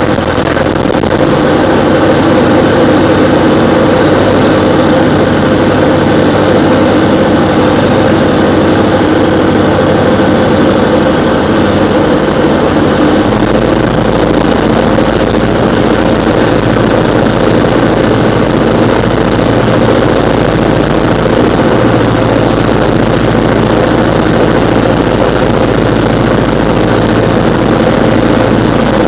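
Diamond DA20's four-cylinder piston engine and propeller running steadily in flight, heard inside the cockpit as a loud, even drone; its low hum shifts a little about halfway through.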